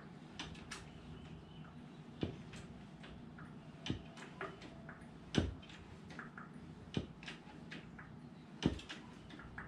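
Hydraulic motorcycle lift being raised by its foot pump: a clunk with each pedal stroke, five in all, about every one and a half seconds, with fainter ticks in between as the lift climbs under the motorcycle's weight.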